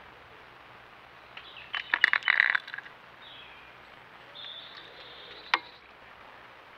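A small metal tin of suet pellets being knocked about on the logs by a feeding blackbird: a burst of clatter and rattling about two seconds in, then a single sharp tap later on. Faint high bird calls sound in the background.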